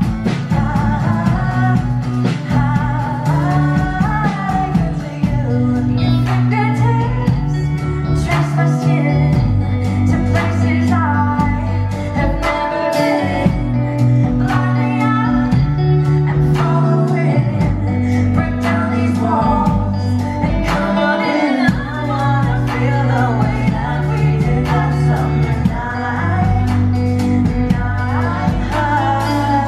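A woman singing a pop ballad live into a microphone, backed by a small band with electric guitar.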